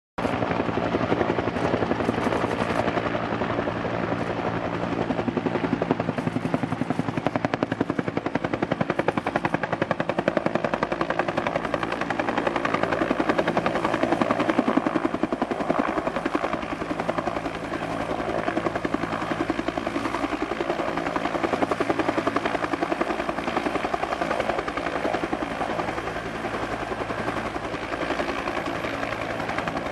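Fuji UH-1J helicopter coming in to land: the fast, even beat of its two-bladed main rotor over the steady sound of its Kawasaki T53 turboshaft engine, easing off slightly near the end.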